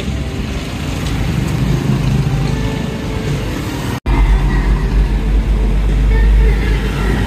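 Street ambience with road traffic noise. About four seconds in the sound cuts out for an instant, then a strong low rumble sets in.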